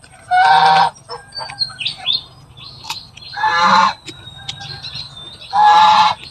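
Domestic goose honking three times, one loud call about every two and a half seconds. The owner says it keeps calling because it wants to play with her.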